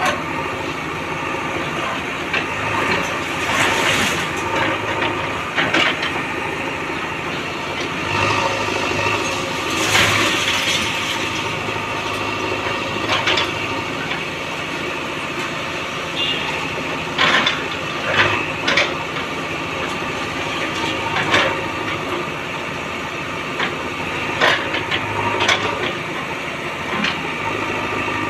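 JCB 3DX backhoe loader's diesel engine running steadily under load. Short crunches and knocks break in about ten times as the machine breaks up the old house's masonry.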